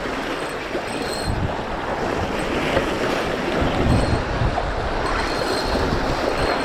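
Strong wind buffeting the microphone in uneven gusts over the steady wash of waves.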